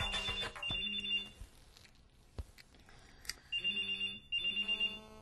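Telephone ringing twice, each ring a pair of short bursts.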